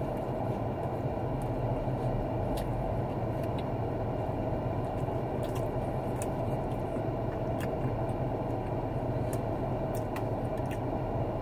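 Steady low hum of a car idling, heard inside its cabin, with faint scattered clicks of a person chewing food.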